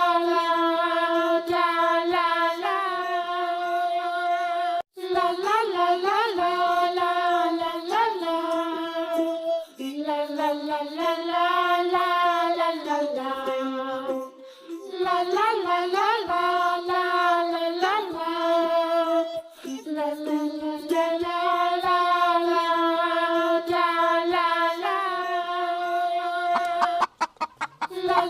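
Children's song: a high child's singing voice carrying a melody over music, with a short break about five seconds in and a quick stutter of clicks near the end.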